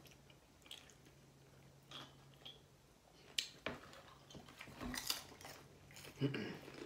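Faint small clicks and clinks of snack pieces being picked from a bowl by hand, then crunching as a mouthful of white chocolate waffle crunch snack mix is chewed.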